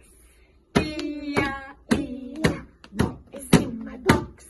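Rhythmic hand clapping, about two claps a second, with a woman singing along between the claps.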